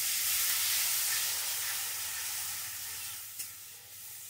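Onions and ground spices sizzling loudly in hot mustard oil in a pan. The sizzle slowly dies down, with a light tap about three and a half seconds in.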